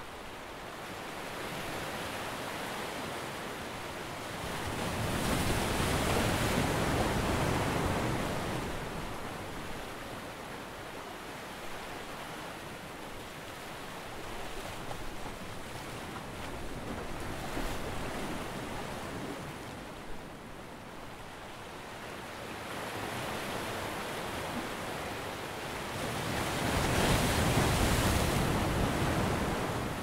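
Ocean surf: waves breaking and washing ashore in a steady rush. Two larger waves surge louder, one a few seconds in and another near the end.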